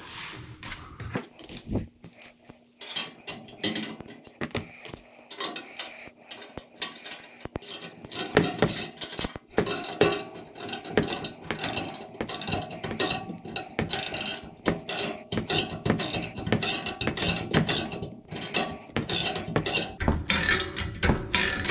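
Socket ratchet clicking in quick runs as a lock nut is tightened onto a hex bolt. The clicks grow denser and louder about a third of the way in.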